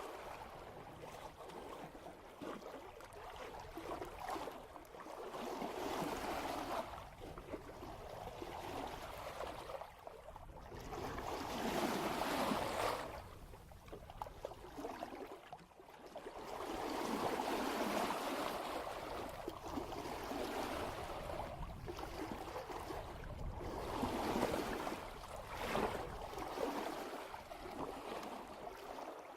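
Sea water rushing and washing along a sailboat's hull under sail, swelling and fading as each wave passes.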